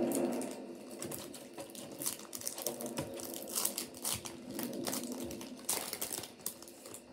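Trading-card pack wrapper being crinkled and torn open by hand: a rapid run of crackles and rustles, with a louder flurry near the end.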